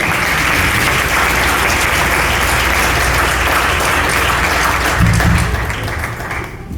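Congregation applauding in a large hall, the clapping dense and steady before it fades away near the end.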